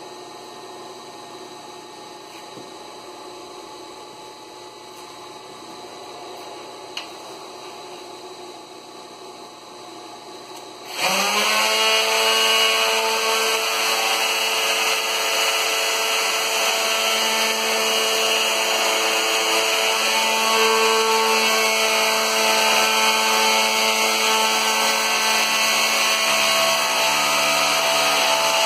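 Faint steady shop background for about eleven seconds, then a plunge router on a gear-driven router jig switches on. Its whine rises quickly to full speed and then runs steadily and loudly as it routs a shallow concave flute along a wooden baluster.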